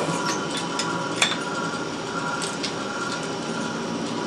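Steady hiss of a glassblowing lathe's gas burner flame under a faint machine hum, with a few light clicks and taps; the sharpest comes about a second in. The clicks come from handling at the lathe chuck as a finished glass O-ring joint is loosened and taken off.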